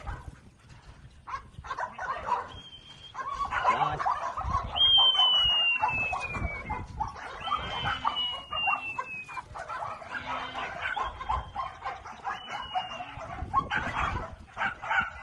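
Farmyard animal calls, with several thin whistled tones that fall in pitch, the longest two lasting about two seconds each around the middle.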